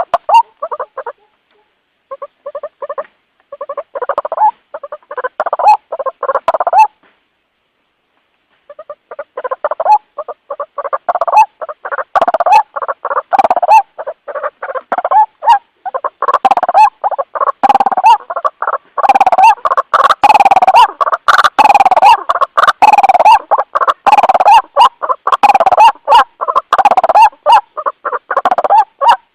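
White-breasted waterhen (ruak-ruak) calling, a rapid series of repeated croaking notes used to call others of its kind. A silent break of about two seconds comes about a quarter of the way in, after which the calls run on thick and unbroken.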